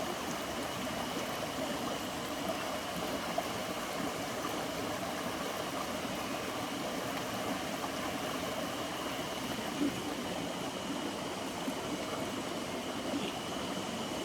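Mountain stream flowing, a steady even rush of water, with a faint steady high-pitched tone above it.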